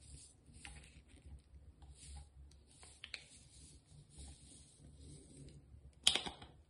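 Faint crinkling and small clicks of a foil saline sachet being handled and tipped over a nasal-irrigation bottle, with a louder crinkle about six seconds in as the sachet is squeezed to empty it.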